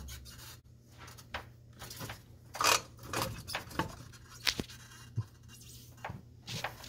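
Irregular scrapes, clinks and knocks of metal as the turbocharger of a 7.3 Power Stroke diesel is wrestled by hand to work it free, the sharpest scrape about a third of the way in.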